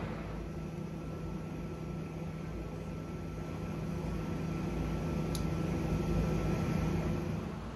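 Steady low hum and rumble of an electric train, with a faint high whine that stops about seven seconds in; a single light tick partway through.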